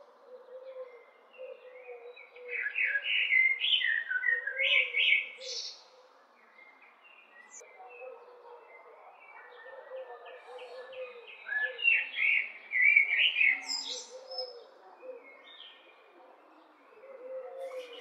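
Male common blackbird (Eurasian blackbird) calling in two bouts of quickly changing notes, one starting about two seconds in and another about eleven seconds in.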